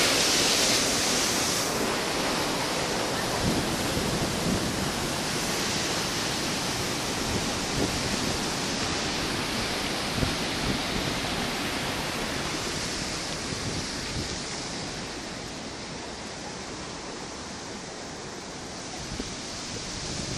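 Water pouring through the openings of a river weir: a steady rush of churning white water, slowly growing quieter over the second half.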